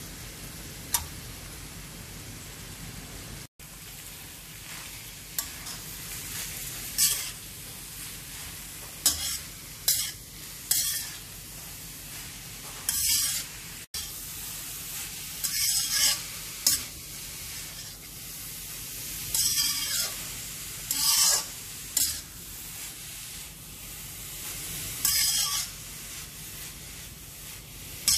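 Grated carrots sizzling in ghee in an iron kadhai, a metal spatula stirring and scraping against the pan in about a dozen irregular strokes over a steady hiss; the carrots are being sautéed in ghee before milk goes in.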